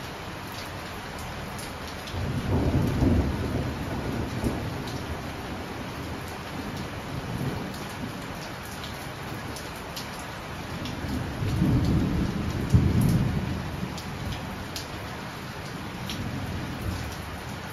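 Heavy rain falling steadily, with scattered sharp drips, and rolling thunder. The thunder rumbles twice: from about two seconds in, and again around eleven seconds, each rumble lasting a few seconds.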